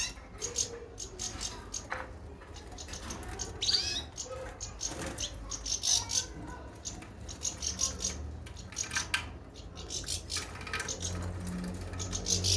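Small birds chirping in quick repeated runs of short high notes, with a few gliding calls.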